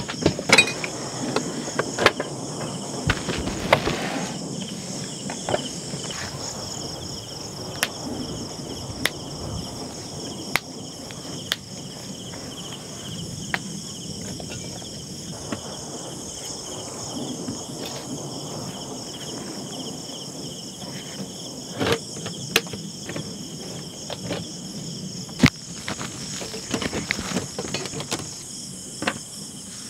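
Steady, high insect chorus, with scattered sharp knocks and clatters throughout, a few louder ones past the middle.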